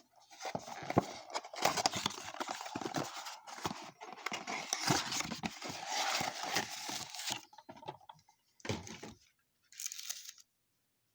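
Plastic wrapping on a blaster box of baseball cards being torn open and crumpled, a dense crinkling for about seven seconds, then two short rustles near the end.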